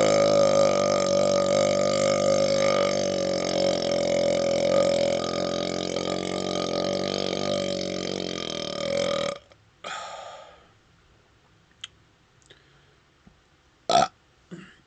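A man's long, sustained burp after chugging Pepsi, held at a steady pitch for about nine seconds and cutting off suddenly. A shorter burst follows about a second later, then faint clicks and a brief loud burst near the end.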